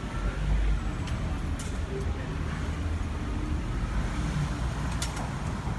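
Street ambience: a steady low rumble of traffic, with two sharp clicks, one about a second and a half in and one near the end.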